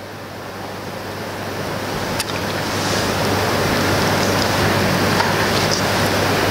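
Steady rushing hiss with a low hum underneath, swelling over the first three seconds and then holding level.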